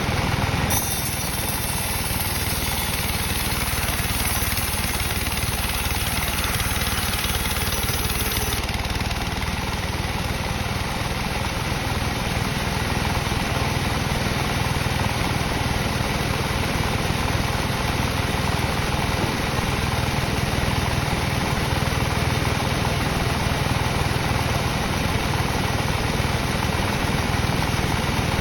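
Sawmill machinery running steadily with a dense engine-like drone. A high hiss over it stops about eight seconds in.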